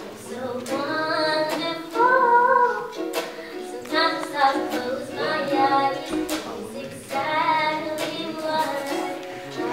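A woman singing a slow, held melody while strumming a ukulele.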